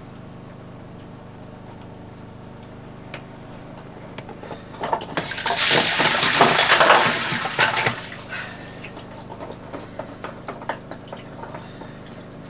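Seawater gushing up through an open through-hull fitting in a sailboat's bilge while the paddlewheel speed sensor is pushed back into it: a loud rush lasting about three seconds near the middle, stopping once the hole is plugged, with lighter splashing and small knocks around it.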